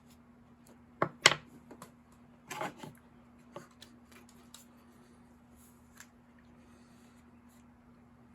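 A few sharp knocks and clicks of objects being handled on a workbench, the loudest pair about a second in and a short clatter a little later, then sparse light ticks, over a steady low hum.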